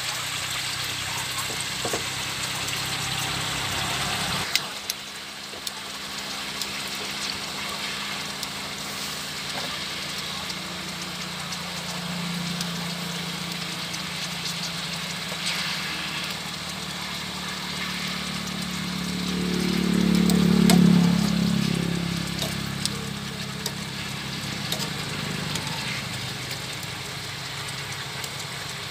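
Beef slices simmering in their juices in a pan: a steady bubbling hiss with small crackles. A low engine-like hum swells to the loudest point about two-thirds of the way through, then fades.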